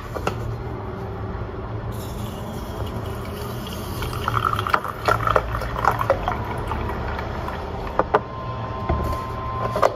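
Milk pouring from a carton into a drinking glass, with a few small clicks from the carton's screw cap being opened first.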